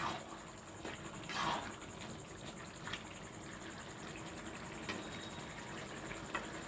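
Thin onion-tomato gravy simmering in a kadai while a flat metal spatula stirs it: a faint steady bubbling, a brief louder stir about a second and a half in, and a few light clicks of the spatula against the pan.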